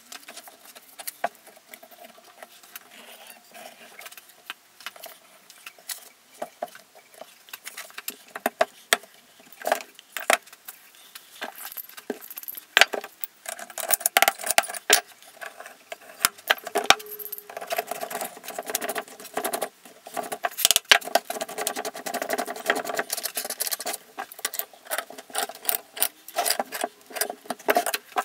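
Metal rods and a copper tube clinking and knocking against the holes in a plywood board as they are fitted by hand. It is a run of irregular sharp clicks and taps that comes thicker in the second half, with a faint metallic ring under it.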